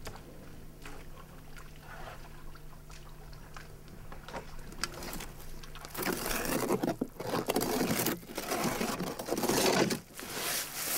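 Irregular rough scraping and crunching noises, quiet at first and loud from about six seconds in, over a faint steady hum.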